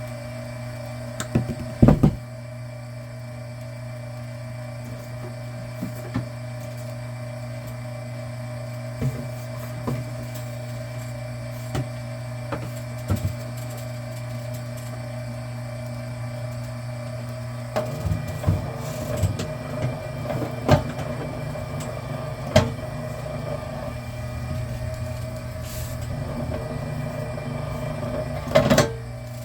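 Electric wire stripping machine running with a steady low motor hum, with scattered clicks and knocks from handling the cable. About two-thirds of the way in, the sound turns rougher and busier as cable feeds through the machine, with a louder rattle near the end.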